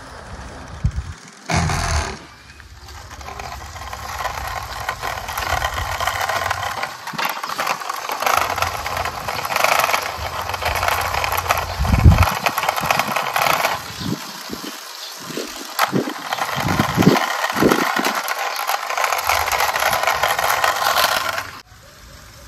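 Wheels of a die-cast model car rolling over a hard surface as it is pushed by hand, a steady rattling scrape with a few low thumps; it stops suddenly near the end.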